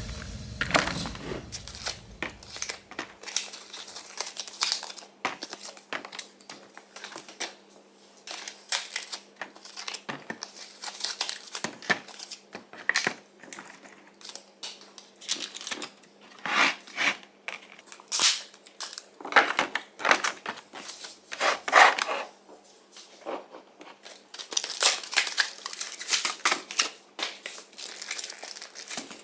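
Packaging being handled during grocery unpacking: plastic yogurt pots and bottles knocking and clacking into a clear plastic storage bin, with cardboard multipack sleeves crinkling and tearing, in irregular bursts of clicks and rustles.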